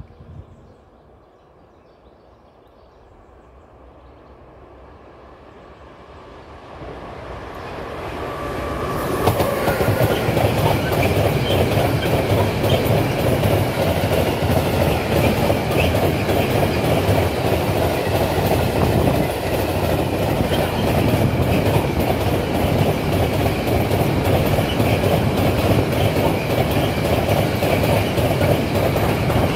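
Freight train of empty stake flat wagons passing close by. The rumble builds from faint over the first several seconds, then from about nine seconds in a loud, steady rush and clatter of wagon wheels on the rails.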